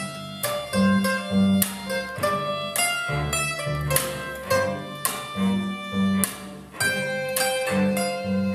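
Acoustic string band of fiddle, cello, plucked upright double bass and mandolin playing a tune together, with the mandolin's chords struck in a regular rhythm over the bass notes and bowed melody.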